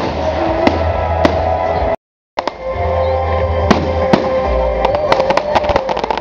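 Fireworks bursting overhead with sharp bangs, then a run of rapid crackles in the second half, over loud music with steady held notes. The sound cuts out completely for a moment about two seconds in.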